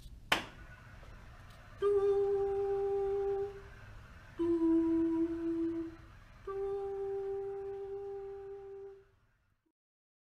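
A single sharp hand clap, then a man humming three long held notes into the microphone, the middle one a little lower than the other two. These are test signals for a sound-controlled robot: a clap toggles it between driving and stopping, and the pitch of a hum sets which way it pivots.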